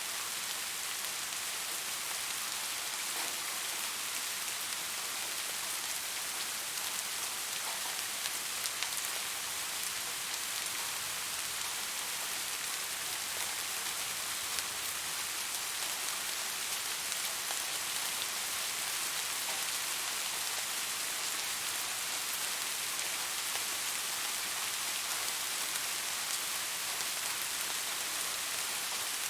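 Steady rain falling on a surface, a dense even hiss with faint individual drop ticks.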